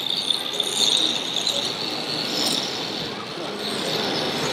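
Busy exhibition-hall background: a mix of crowd chatter and hall noise, with a steady high-pitched tone running through it.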